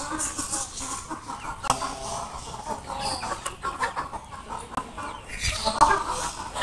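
A flock of chickens clucking and calling in short, irregular bursts while they feed.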